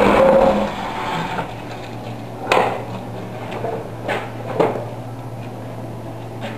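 A manual concrete block machine's motor running and cutting off about half a second in, leaving a low steady hum. Then three sharp metal clanks as the machine's steel lever and mould are worked to release the freshly pressed block.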